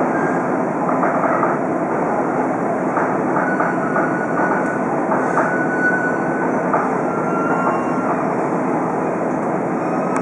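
Diesel railcar heard from inside the carriage: steady running noise of the train on the rails as it slows into a station and stops, with a few short, high-pitched squeals in the middle.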